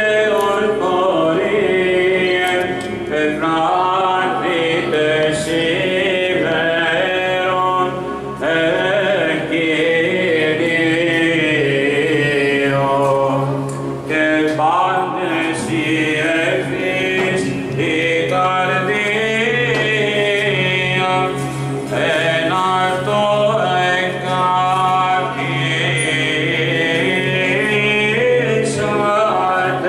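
Greek Orthodox Byzantine chant at vespers: voices sing a winding melody over a steady held low drone, with short breaks between phrases.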